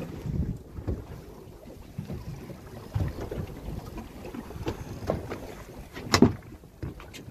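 Wind gusting over the microphone on a small boat at sea, with water moving along the hull. A single sharp knock about six seconds in.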